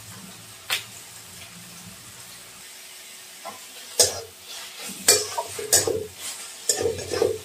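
Metal spatula scraping and stirring food in a metal kadai, a quick run of scrapes against the pan starting about four seconds in, over a faint sizzle. A single sharp clink comes about a second in.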